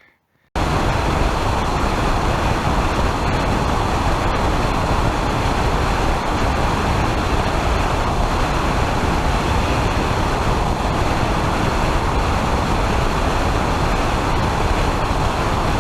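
Steady, loud road and wind noise of a car driving at speed, cutting in abruptly about half a second in.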